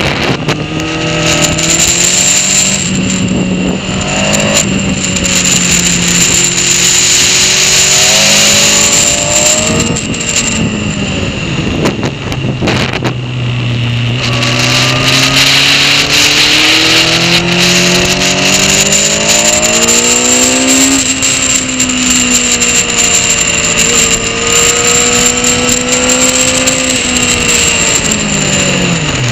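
Honda CBR sport bike's engine, heard from a camera on the bike, accelerating hard through the gears: the pitch climbs and drops back at each upshift, falls away while easing off for a corner about ten seconds in, then climbs through the gears again and is held high before dropping sharply near the end. Steady wind noise runs under it.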